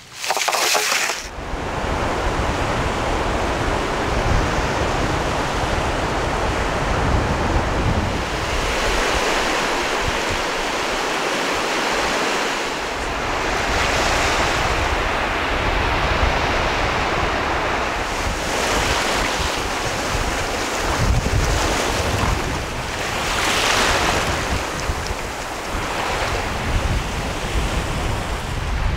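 Sea surf breaking and washing up a sandy beach, swelling every few seconds, with wind buffeting the microphone.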